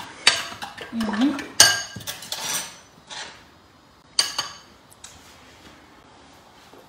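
A metal spoon stirring a thick dressing in a glass bowl, clinking and scraping against the glass. Several sharp clinks come in the first half, with a last loud clink a little after four seconds in, then it goes quieter.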